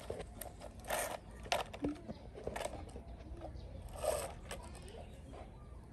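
A few short scrapes and knocks of a plastic toy alligator being shoved and dragged across a sandy concrete yard by a baby monkey, about four in all.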